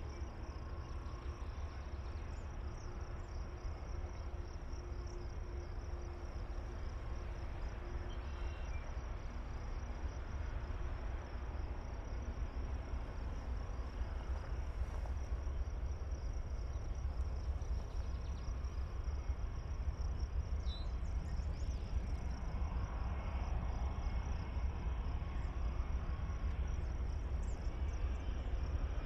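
Steady high trilling of insects in the grass, over a low rumble from an approaching diesel freight train coming down the grade. The rumble grows slowly louder toward the end.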